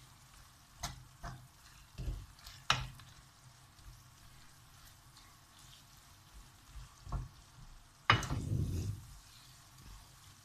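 Wooden spoon stirring a thick tomato-and-onion masala frying in a nonstick pan, with a faint sizzle underneath. The spoon knocks against the pan several times, and a louder scrape lasting about a second comes near the end.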